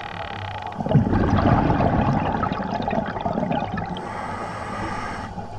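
Scuba diver exhaling through a regulator underwater: a rush of bubbles starts suddenly about a second in and fades over the next two seconds.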